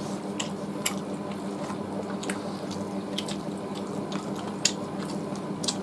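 Hand-eating sounds: fingers tearing roast chicken and mouths chewing, scattered soft wet clicks and smacks, over a steady low hum.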